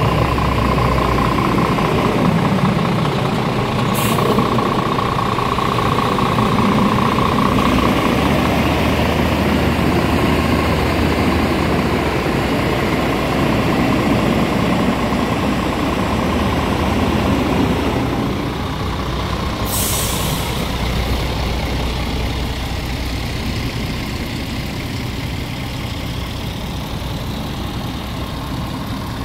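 Scania R450's 13-litre inline-six Euro 6 diesel idling steadily, with two short hisses of compressed air being released, one about four seconds in and one about twenty seconds in.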